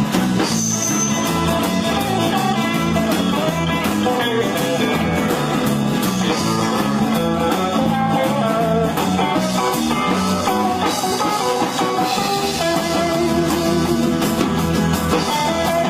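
Live rockabilly band playing an instrumental break, with guitar lead over a steadily stepping bass line and a driving drum beat.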